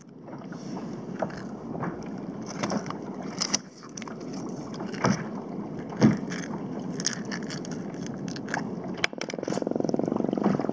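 A whitemouth croaker being unhooked by hand on a plastic kayak deck: scraping and sharp knocks of hands, fish and tackle against the hull. Near the end the fish drums, a rapid, even buzzing croak lasting about two seconds.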